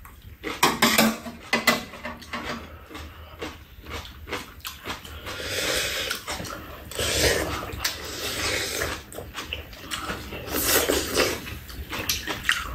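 Two people slurping and chewing Korean bean sprout soup (kongnamul-guk). Spoons and chopsticks click against the bowls in the first couple of seconds, followed by long wet slurps.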